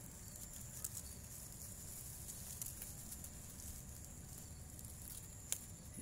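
Steady high-pitched chirring of insects, with a low rumble and light rustling clicks underneath and one sharp click about five and a half seconds in.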